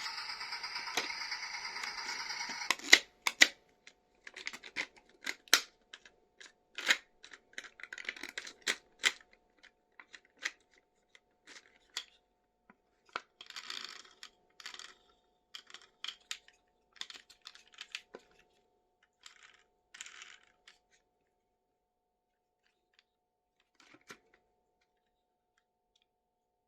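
Hands handling toy and packaging: irregular sharp clicks and taps of plastic parts with short bursts of crinkling plastic wrap. These thin out and stop in the later part, after a louder steady sound cuts off about three seconds in.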